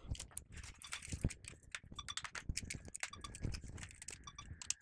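Irregular clicks and knocks as cables and a VGA connector are handled and plugged into the rear ports of a desktop computer.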